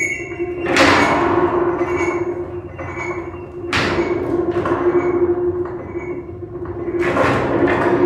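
Live experimental electronic sound: a steady drone tone held throughout, with bursts of rushing noise that start sharply and fade away, three times, about three seconds apart.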